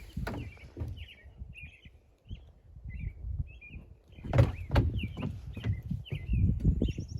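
Small birds chirping in short repeated notes over irregular low thumps and knocks, the thumps loudest about four to five seconds in and again near the end.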